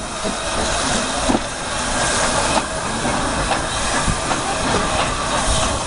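Narrow-gauge Garratt steam locomotive pulling away slowly, with a steady loud hiss of steam as it moves off.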